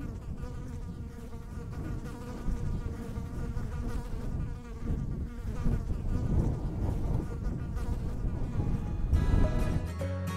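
Honey bees buzzing around the hives, a wavering hum of many wings. Music begins about nine seconds in.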